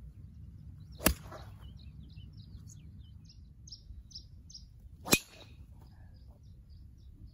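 Two golf tee shots, each a sharp crack of a driver striking the ball, about a second in and about five seconds in. Between and after them a bird chirps in a quick run of short high calls.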